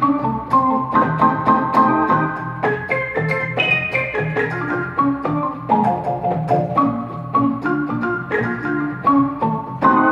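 Electronic keyboard being played: chords over a low bass line, changing every half second to a second, each with a sharp start.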